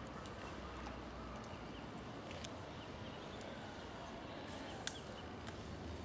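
Quiet pond-side ambience: a steady low hiss with a few faint scattered clicks and one sharper click near the end.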